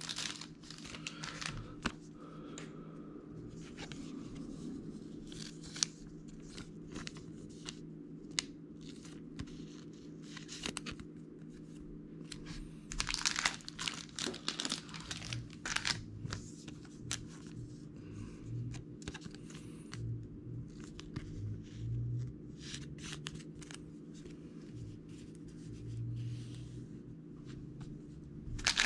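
Trading cards and plastic packaging being handled on a table: irregular crinkling and rustling, with louder spells and a few soft knocks, over a steady low hum.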